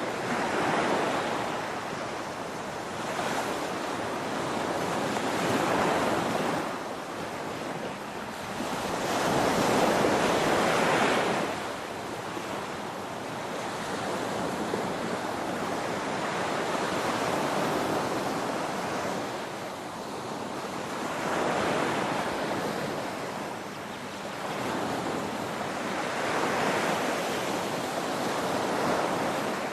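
Ocean surf: waves breaking and washing on a shore in a continuous hiss that swells and eases every few seconds, about six surges in all.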